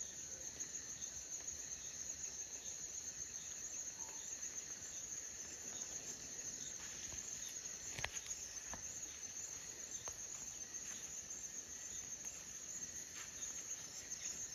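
Steady high-pitched chorus of insects such as crickets, with a single sharp click about eight seconds in.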